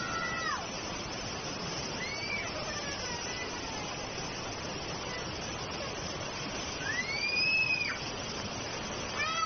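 Muddy floodwater rushing in a swollen river, a steady loud roar of churning water with rain. A few brief high-pitched cries rise and fall over it, the longest about seven seconds in.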